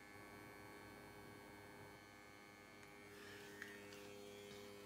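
Airbrush compressor left running, a faint steady electric hum that grows slightly stronger about three seconds in. A single light tick about three and a half seconds in.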